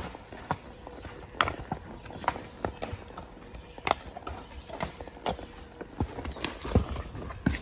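Horse hoofbeats on a dirt-and-leaf forest trail: an uneven clip-clop of hooves striking the ground, about one to two a second, loudest near the end.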